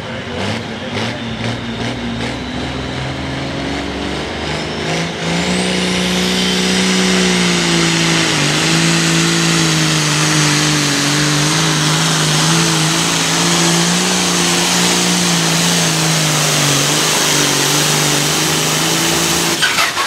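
John Deere 4430 hot farm pulling tractor's turbocharged diesel engine under full throttle, dragging the weight-transfer sled. It revs unevenly for the first few seconds, then climbs about five seconds in to a loud, steady high-rpm pull. The pitch dips briefly around eight seconds and sags slowly as the sled bogs the tractor down near the end.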